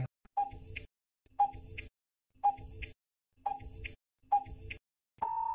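Quiz countdown-timer sound effect: five identical ticks about a second apart, then a steady beep about a second long near the end, marking that the time to answer is up.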